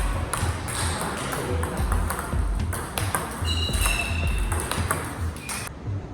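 Table tennis ball being struck back and forth in a rally, a quick series of sharp clicks of ball on bat and table, with a short squeak a little past halfway. Background music with a steady bass beat plays underneath.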